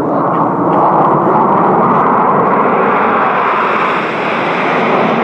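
Jet noise from a formation of Aermacchi MB-339PAN trainers with Rolls-Royce Viper turbojets flying over: a steady, loud rushing noise that takes on a brighter hiss from about halfway through.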